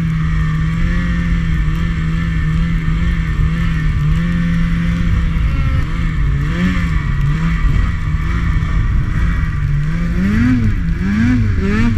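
Snowmobile engine running under throttle in deep snow, steady at first, its pitch wavering from about halfway. Near the end it revs up and down several times in quick succession.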